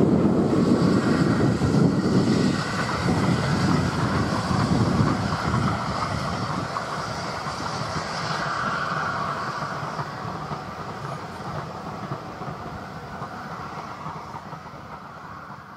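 Rake of passenger coaches rolling past on the rails, the sound fading steadily as the train draws away until it has nearly died out.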